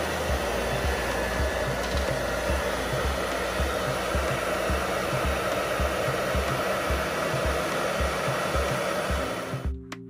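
Handheld hair dryer blowing steadily to warm and soften the adhesive holding an iPhone charging port. It switches off suddenly just before the end, leaving background music with a steady beat that runs underneath throughout.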